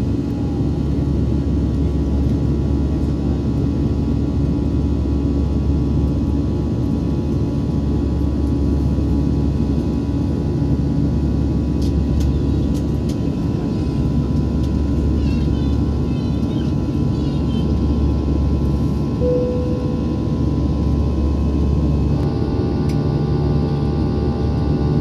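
Steady low rumble of a vehicle cabin in motion, with faint steady hum tones over it that shift a little near the end.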